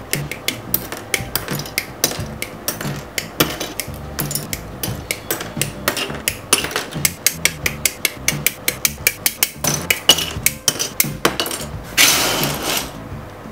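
Plastic model kit parts being snipped off the plastic runner with side cutters: a fast run of sharp clicks and snaps. Near the end comes about a second of loose plastic parts rustling and clattering as a hand sweeps through a pile of them.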